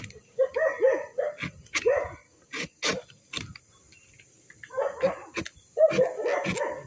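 Short bursts of yelping animal calls, each rising and falling in pitch, with a pause midway, between sharp clicks of a knife slicing the end of a sugar palm flower stalk.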